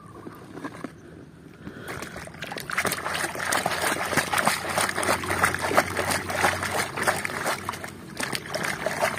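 A hand rummages among plastic toys in a basket with a few light clicks, then from about two seconds in a plastic toy car is swished and scrubbed through muddy water, splashing and sloshing without a break.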